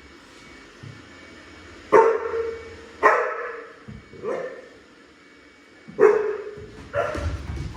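A dog barking, about five loud barks at irregular intervals starting about two seconds in.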